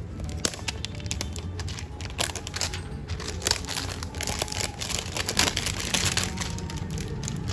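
Plastic packaging crinkling and rustling as it is handled and unwrapped, in a run of irregular crackles that grows denser past the middle.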